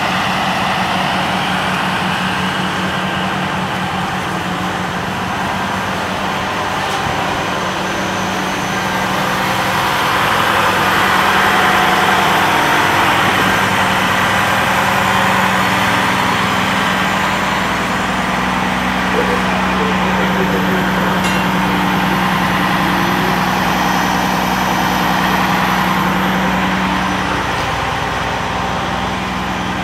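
Fire truck's diesel engine idling steadily, a constant low hum that holds even throughout.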